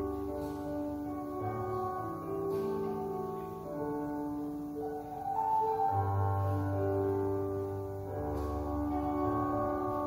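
Slow instrumental music on an electronic keyboard: sustained chords over held bass notes that change every second or two, with no singing.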